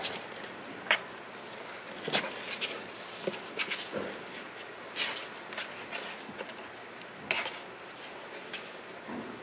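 Kittens' claws scratching and scrabbling on a cardboard box as they climb on it and crawl inside, an irregular string of short scratches and light knocks.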